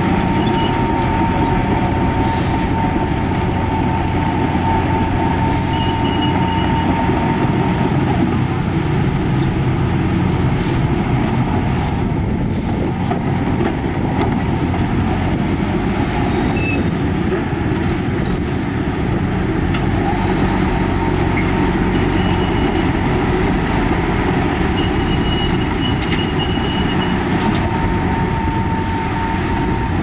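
Heavy diesel construction machinery working: a steady, loud engine drone, with a thin whine held for the first several seconds and again near the end, and a few short clanks.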